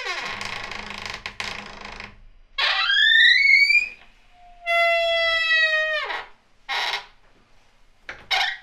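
Squeaky wooden door, its hinges creaking and squeaking as it swings: a long grinding creak, then a squeak rising in pitch and another that holds and then drops, each about a second and a half, followed by two short creaks near the end.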